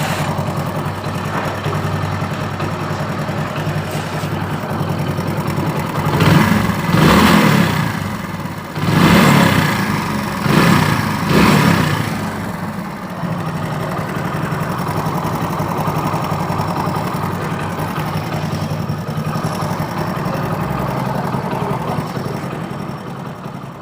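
Hero Super Splendor's single-cylinder four-stroke engine idling, blipped up in a few short revs about a quarter to half of the way through, then settling back to a steady idle.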